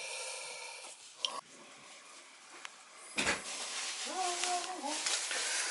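Handling noise: rustling and rubbing as the plastic test-strip bottle is handled, then a single knock about three seconds in. Near the end comes a short, steady hum from a person's voice.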